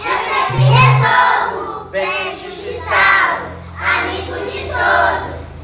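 A group of young children singing a funk song together over a backing track, with short deep bass notes in the first second and a low held bass tone later.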